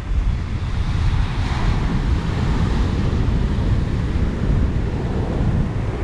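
Strong wind buffeting the microphone over surf breaking on the beach, with a wave washing up and swelling louder about a second and a half in.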